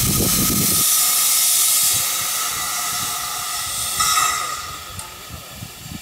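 Steam locomotive S-304 hissing loudly as steam vents low by its cylinders while it moves slowly. The hiss fades from about two seconds in, with a brief louder burst about four seconds in.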